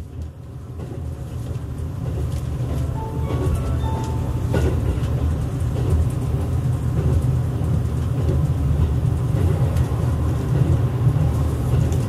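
Cabin running noise of a JR Kyushu 787 series limited express car under way: a steady low rumble that grows louder over the first couple of seconds, then holds.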